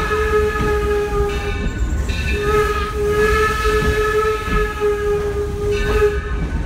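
Torch Lake steam locomotive's whistle blowing long blasts. One blast ends about a second and a half in, and a second long blast follows about half a second later and lasts nearly four seconds, over the low rumble of the train running.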